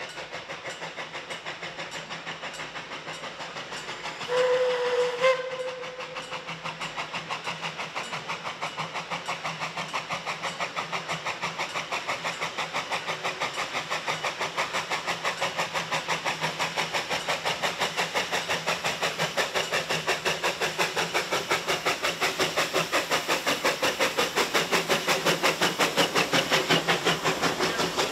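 Narrow-gauge steam locomotive 12A approaching: one short blast of its five-chime steam whistle about four seconds in, lasting about a second. Through it all runs a steady, rapid rhythmic beat from the working train, growing louder as it nears.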